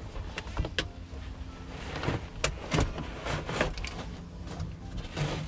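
Molded floor carpet being pulled up and folded back off a pickup cab's sheet-metal floor: irregular dragging, rustling and sharp crackling scrapes, busiest in the middle of the stretch.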